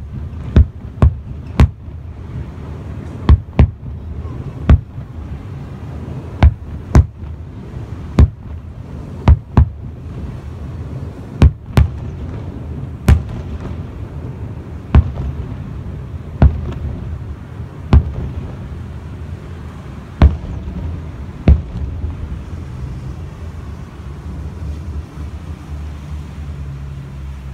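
Aerial firework shells bursting: about twenty sharp, distant bangs at irregular intervals, some in quick pairs, over a steady low rumble. The bangs stop about three quarters of the way through, leaving only the rumble.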